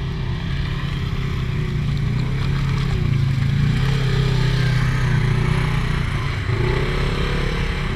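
Polaris RZR XP 1000 side-by-side's engine running steadily under load as it churns through deep mud, growing a little louder as it passes close about halfway through.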